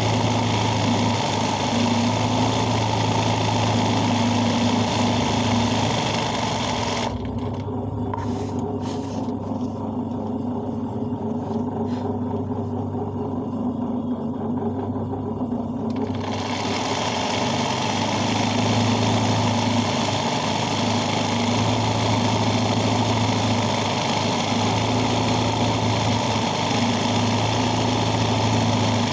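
Sewing machine running steadily, stitching freehand embroidery through fabric stretched in a hoop, with a constant low hum. The sound turns muffled for about nine seconds in the middle.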